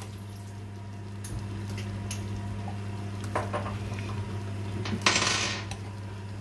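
Metal ladle stirring thick congee in a stainless steel pot, with scattered light clinks of the ladle against the pot and one louder scraping clatter about five seconds in as the ladle is left resting against the rim. A steady low hum runs underneath.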